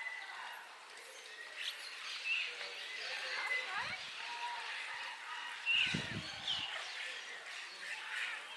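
Birds chirping in short, repeated gliding calls, with a short low rumble about six seconds in and a fainter one a little before that.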